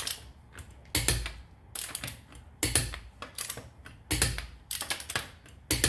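Torque wrench clicking as the lug nuts are re-checked at 80 ft-lb: a series of sharp metallic clicks, about one a second, some coming as quick doubles.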